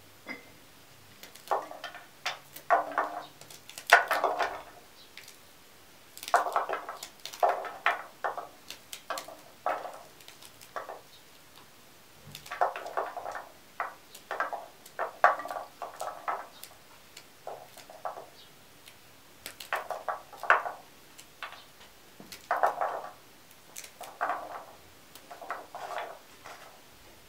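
Fresh green beans being trimmed and cut by hand with a small knife: short, crisp snaps and cuts in quick clusters every second or two, with bean pieces dropping into an aluminium bowl.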